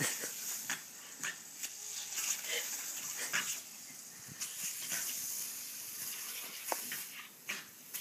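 Small terrier snapping and biting at the water jets of a lawn sprinkler, making short irregular sounds about every half second over the steady hiss of the spray.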